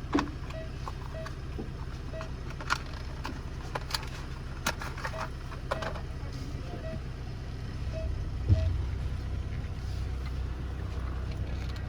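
Car interior while driving: a steady low engine and road rumble with scattered clicks and knocks, and one louder thump about eight and a half seconds in.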